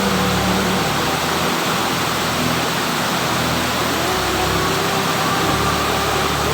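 Waterfall: a steady rush of falling water, with held notes of background music over it.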